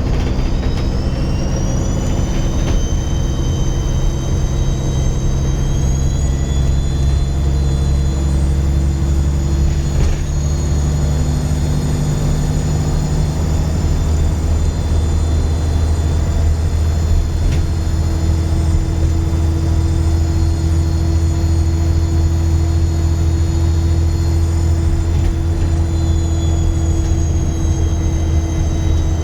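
Dennis Trident 2 double-decker bus's diesel engine pulling, with a loud turbo whistle. The whistle rises in pitch over the first few seconds, holds steady, then falls away near the end. A low engine drone underneath changes pitch about halfway through.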